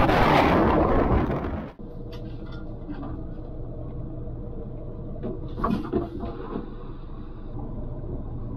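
A loud rush of wind and water noise that cuts off suddenly after about two seconds. Then a quiet steady background with scattered light knocks and clinks as an anchor chain is handled and let out over the boat's stern, a few of them louder around the middle.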